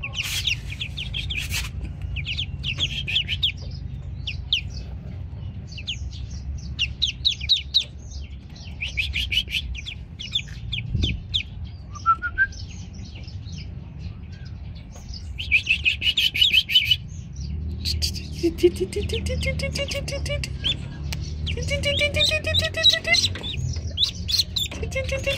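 Newly hatched ducklings peeping in quick runs of high chirps, with short breaks between runs. In the last third, lower calls that rise in pitch join the peeping.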